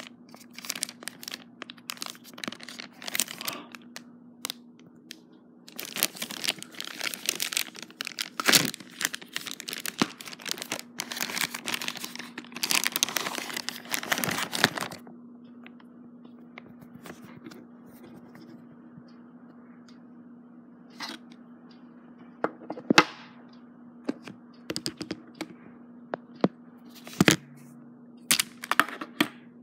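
Paper-and-plastic shipping envelope being handled and torn open, with dense bursts of tearing and crinkling for about the first fifteen seconds. After that, occasional rustles and a few sharp knocks, over a steady low hum.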